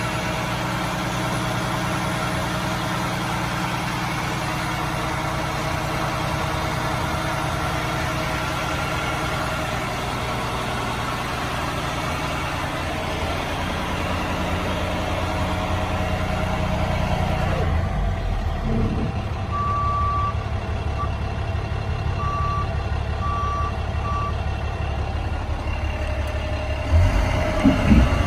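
International 4400 truck's diesel engine idling steadily. From about two-thirds of the way through, a high electronic warning beep repeats roughly once a second over the idle, and there are a few knocks near the end.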